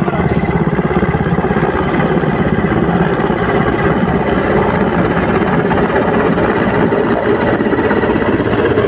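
Helicopter flying low, its rotor chopping loud and steady with a fast, even beat.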